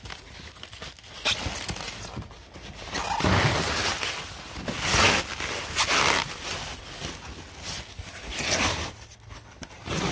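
Plastic wrap and foam packing sheets rustling and crinkling in uneven bursts as they are pulled and handled.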